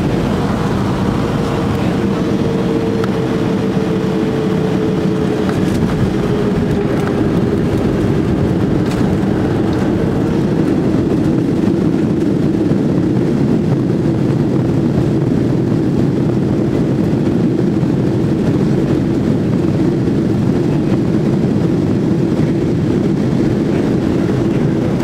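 Cabin noise of a Boeing 737-300 landing and rolling out, heard over the wing: the CFM56 engines and airflow make a loud steady rumble. A whine falls slowly in pitch over the first several seconds, and the rumble grows fuller from about ten seconds in as the jet rolls down the runway with its spoilers up.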